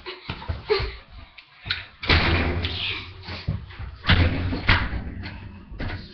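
Several thumps and bangs, the two loudest about two and four seconds in, each with a short rumbling tail, and lighter knocks between.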